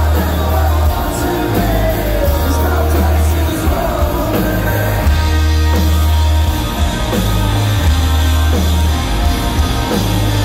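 Live punk rock band playing loud through a venue PA, electric guitars, bass and drums, with a heavy booming low end. A voice sings over the first couple of seconds.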